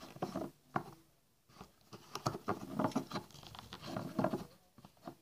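Plastic cosmetic bottles being handled close to the microphone: irregular light taps, clicks and rubbing of fingers on the bottles and their plastic caps, with a short pause about a second in.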